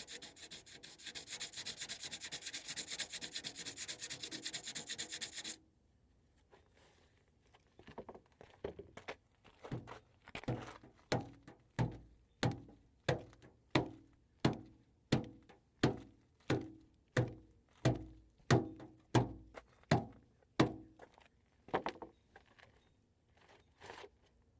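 Hand sanding of cured Bondo body filler with 60-grit sandpaper: fast, steady scrubbing for about five and a half seconds, then a short pause, then a long run of slower separate strokes, about one and a half a second, each starting sharply and fading.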